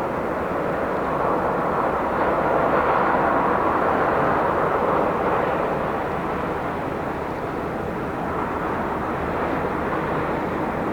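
Steady rushing roar of harbourside city ambience: a building's mechanical drone mixed with distant road traffic. It swells a couple of seconds in and eases back by about six seconds.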